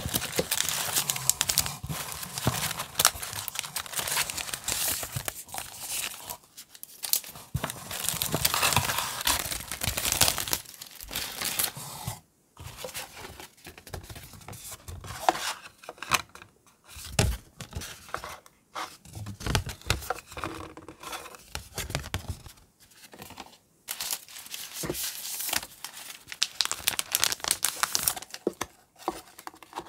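Clear plastic sleeves of stickers and paper goods crinkling and rustling as hands handle them and the cardboard box, in irregular spells with brief pauses. A few soft knocks and low thuds come as items are set down.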